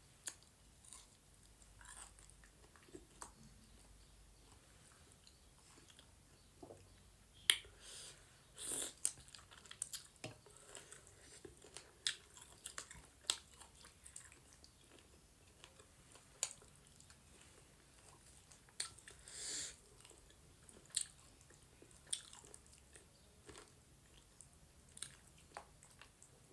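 A person eating goat meat with dhido: chewing with wet mouth clicks and smacks, and a few longer, louder mouth sounds about nine and twenty seconds in.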